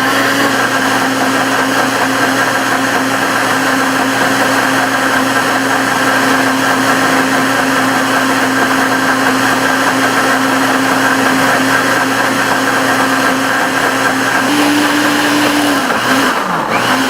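Countertop blender motor running steadily while it purees a thick mix of honey and fresh herbs. Its pitch steps up briefly near the end, and it starts winding down as it is switched off at the very end.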